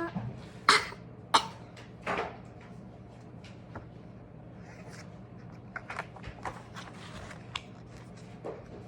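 Pages of a paper picture book being handled and turned: three sharp clicks with rustling in the first two seconds or so, then scattered faint ticks and rustles over a low steady hum.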